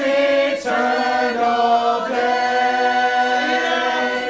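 A small family group singing a gospel hymn in harmony, holding out the words "eternal day" at the end of a verse.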